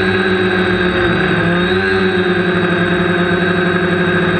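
Quadcopter's electric motors and propellers whining steadily, recorded close up by the camera on the airframe, the pitch wavering briefly about one and a half seconds in.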